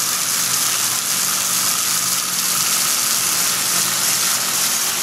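Flood coolant from three nozzles of a Tormach PCNC 1100 mill running at full flow, making a steady hiss and splash as the streams hit the enclosure walls. A low steady hum sits underneath.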